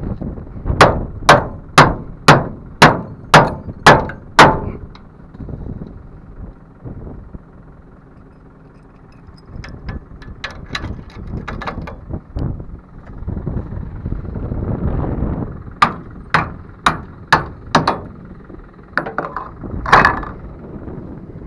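Hammer blows on the rusty steel tailgate latch of a farm trailer: a run of about eight sharp metal strikes, roughly two a second, then further short runs of strikes later on.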